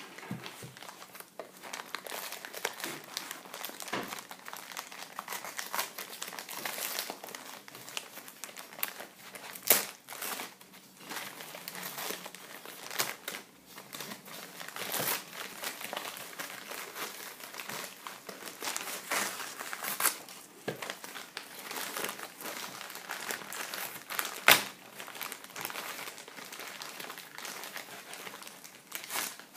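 Crumpled printed-paper wrapping being pulled and torn off a long package: a continuous rustle and crinkle of paper with several sudden louder crackles.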